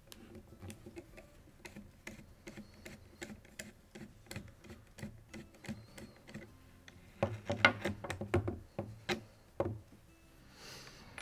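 Screwdriver backing out the receiver-cover screws of a Remington Nylon 66 rifle: a run of light clicks and ticks of the blade turning in the screw heads, with a louder cluster of clicks and knocks from about seven seconds in. A brief soft rustle near the end.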